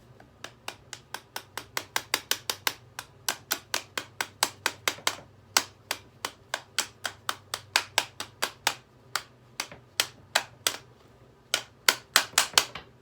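A rapid series of sharp, light knocks or clicks, about four a second with a couple of brief pauses, over a faint steady low hum.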